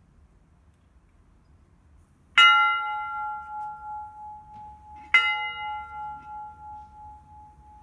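A large bell hung in a wheeled wooden frame, struck twice about three seconds apart. Each strike rings with several tones, the higher ones dying away first and one lower tone humming on long after.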